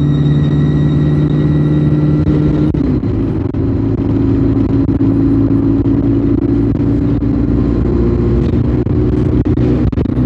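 ADL Enviro 200 Dart single-deck bus heard from inside, its engine and drivetrain running. A high whine sinks slightly and fades out about three seconds in, and the engine then carries on at a steady pitch.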